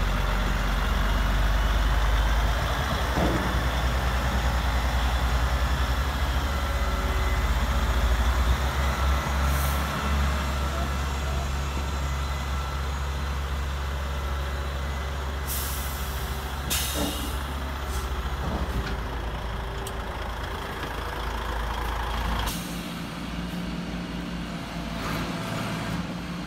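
Simulated diesel-engine sound from a radio-controlled model truck's sound module, running with a steady low rumble, with short air-brake hisses about halfway through. Near the end the engine note changes to a higher, steadier tone.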